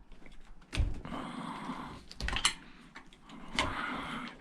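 Hand tool working against a metal scrap part: irregular clicks and knocks with short spells of scraping, as a stuck rubber piece is pried out.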